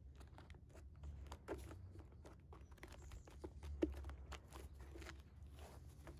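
Stiff fabric crinkling and crackling as hands fold and press it flat against a wooden board, with scattered small clicks and one sharper click a little past the middle.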